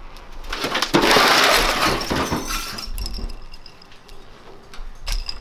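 A sudden crash about a second in: a second and a half of shattering noise that trails off into scattered clinks.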